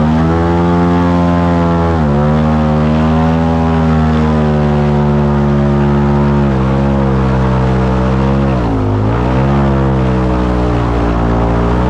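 Airboat engine and air propeller running hard at speed, a loud steady drone whose pitch dips briefly about three times and picks back up as the throttle eases and opens.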